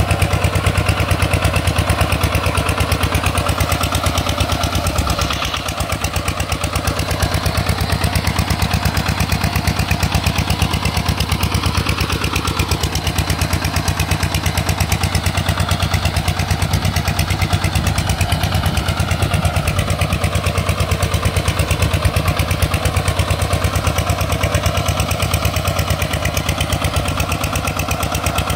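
Single-cylinder diesel engine of an RT 140 Plus hand tractor running steadily with a fast, even chugging beat, dipping slightly in level about five seconds in.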